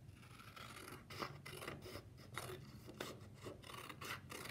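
Scissors cutting a long strip from a sheet of construction paper: a run of short, crisp snips, a few a second, starting about a second in.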